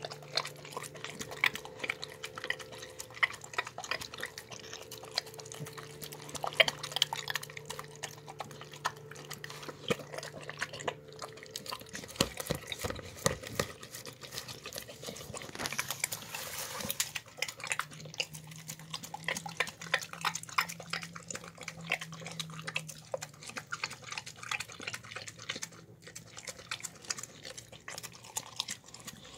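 A dog eating a wet meal of pasta and beans from a plastic tub: fast, irregular wet lapping, chewing and smacking, with small clicks against the tub.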